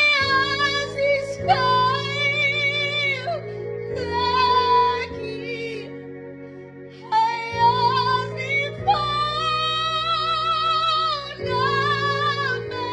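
A woman singing solo in long held phrases with a wavering vibrato, broken by short pauses for breath, over steady sustained chords underneath.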